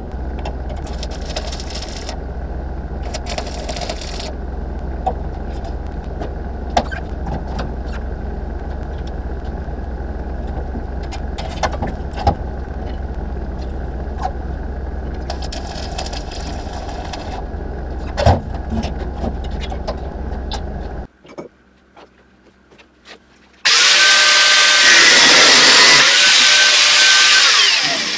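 Welded scrap-metal windmill spinning over a steady low hum, its loose metal parts giving a sharp clink now and then. After a short lull near the end, a much louder machine noise with a wavering whine starts and runs for about four seconds.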